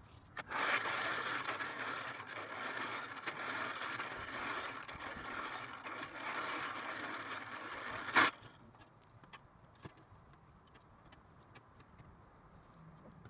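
Air blower feeding the pipe of a homemade charcoal forge, running with a steady rushing hum for about eight seconds. It is switched off with a click, and a few light clicks of charcoal being handled follow.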